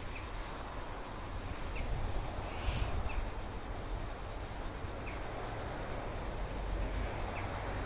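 Outdoor ambience: a steady high-pitched hiss, wind rumbling on the microphone, and a few short bird chirps spread through.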